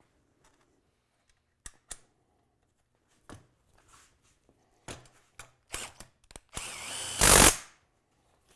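A few light clicks and knocks of metal parts being handled, then a cordless drill-driver runs for about a second, loudest for a moment near the end, as it drives a bolt into the rear scissor pivot on an aluminium snowmobile suspension rail.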